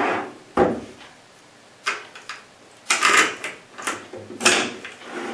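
Series of sharp clicks and knocks from a Stack-On PC-650-B portable lock case being handled, unlatched and its lid lifted open. The clicks are irregular and spread over the few seconds, and the loudest comes near the end.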